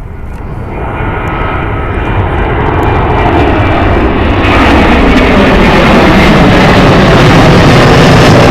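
Jet airliner's engines growing steadily louder as the aircraft approaches, then a loud, even engine noise as it passes close by.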